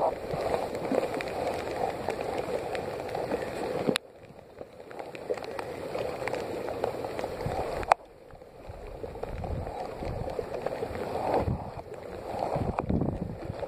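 Lake water lapping and gurgling against a kayak's hull in choppy water. The sound drops off abruptly twice, about four and eight seconds in, then builds back up.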